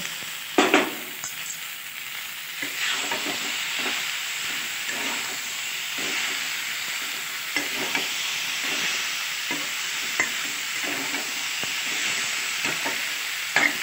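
A steel spatula stirs and scrapes potatoes, soya chunks and fresh tomatoes around a steel kadai, with frequent clinks and a steady sizzle of frying over a gas flame. A louder clink comes a little under a second in. This is the bhuna stage, the curry being stir-fried to cook down the tomatoes.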